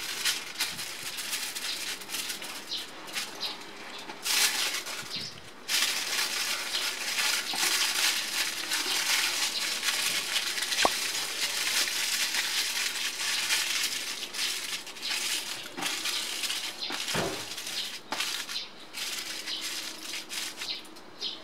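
Aluminium foil crinkling and crackling as it is folded and pressed by hand around a raw ground-meat loaf, busiest for several seconds in the middle.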